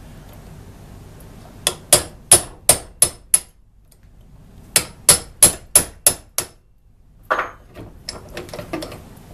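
Hammer tapping a center punch against steel, staking the vise screw's thread into the notch of its lock nut so the nut is locked in place. Two runs of six sharp, ringing metallic taps, about three a second, with a short pause between. Lighter handling knocks follow near the end.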